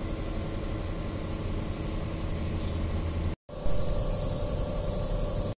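Mercedes-Benz OM651 four-cylinder diesel engine idling steadily, breaking off for a moment about three and a half seconds in.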